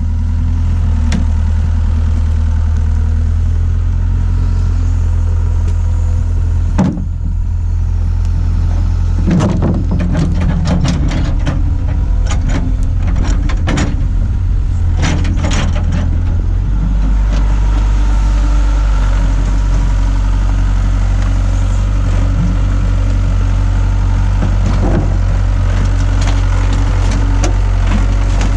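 Hitachi hydraulic excavator's diesel engine running steadily, with a run of sharp clanks and knocks in the middle as the machine works. The engine note changes a little past the middle.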